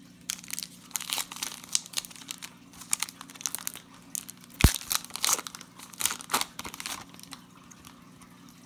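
Foil wrapper of a 2018 Prestige football card pack crinkling and tearing as it is ripped open: a run of irregular crackles, with one sharp rip a little past halfway through.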